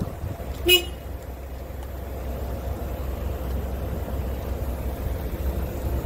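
A single short vehicle horn toot a little under a second in, over a steady low rumble of road traffic.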